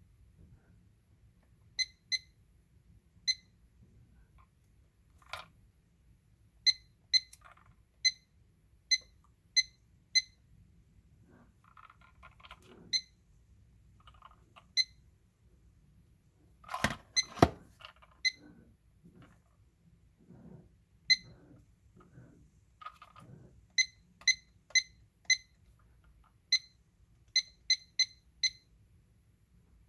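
IKEA KLOCKIS digital clock's beeper giving about twenty short, high single beeps at uneven intervals, the key beeps of its buttons being pressed while it is set. A few knocks of the plastic unit being handled come about halfway through.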